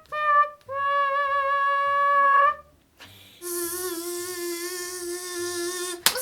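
A woman's voice imitating an electronic beep, first the last of a run of short beeps, then one long held beep. After a pause comes a lower, steady hummed tone mixed with a breathy hiss, ending in a sharp click.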